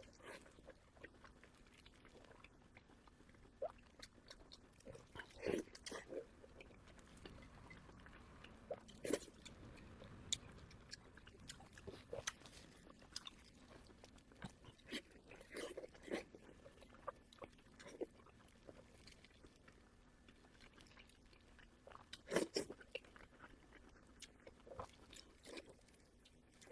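Close-miked chewing and biting of pork belly: wet mouth clicks and smacks coming in scattered clusters, with a few louder bites.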